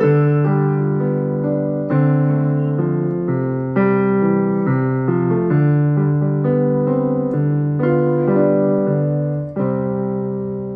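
Yamaha PSR-i500 arranger keyboard playing a piano voice: slow held chords over a bass line, a new chord struck every second or two, each fading as it is held.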